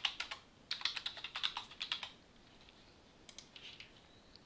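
Typing on a computer keyboard: two quick runs of keystrokes in the first two seconds, then a few fainter clicks later.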